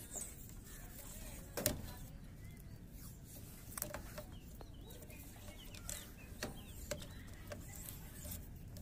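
Birds calling faintly in the background, with several sharp knocks scattered through; the loudest comes about a second and a half in.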